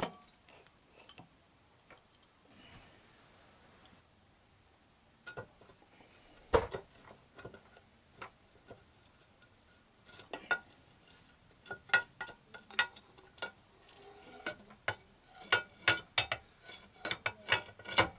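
Metal clinks and knocks, some with a brief metallic ring, as a motorcycle drive shaft and swinging arm are handled and fitted. One heavier knock comes about six and a half seconds in, then a quick run of clinks through the second half.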